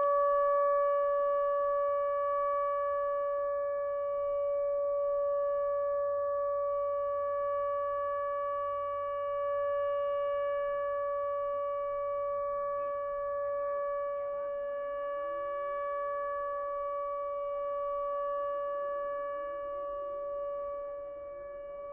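A siren sounding one steady, unchanging tone. Fainter siren wails rising in pitch come in twice in the second half.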